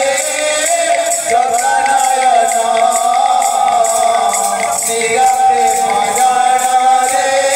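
Kirtan music: male voices singing a devotional song over the steady beat of khanjani-style jingles.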